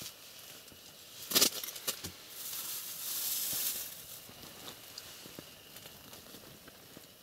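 Rustling and crinkling of a plastic bag and clothing being handled, loudest for about a second and a half in the middle, with a couple of sharp knocks shortly before it.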